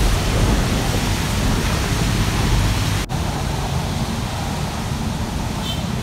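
Steady rushing noise with a brief dropout about three seconds in.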